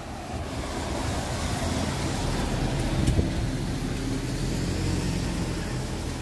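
Car engine and street traffic: a steady engine hum that builds over the first three seconds and then holds.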